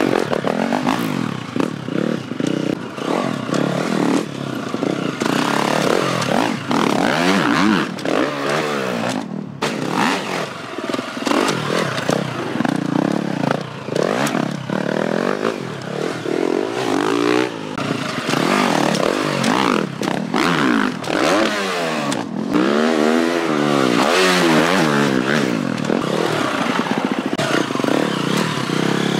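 Husqvarna dirt bike ridden hard round a motocross track, its engine revving up and dropping back again and again with each gear change and jump.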